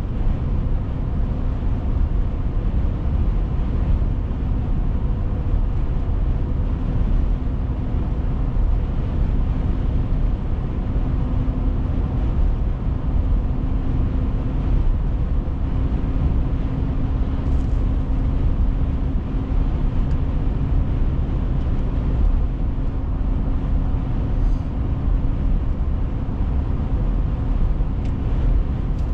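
A car driving at a steady speed: continuous low road and engine rumble with a constant low hum, unchanging throughout.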